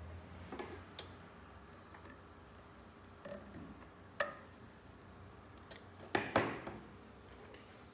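Small scattered clicks and taps of pliers and a metal hose clamp being worked onto the silicone water hose of a glass CO2 laser tube. There is a sharp click about four seconds in and a cluster of louder clicks a little after six seconds.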